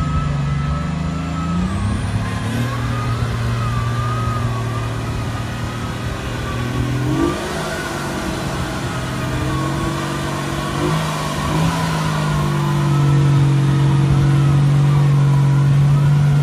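Off-road competition vehicle's engine running hard under load, its revs rising, dropping and holding steady for stretches, with a wavering whine above it. It gets louder and holds steady near the end.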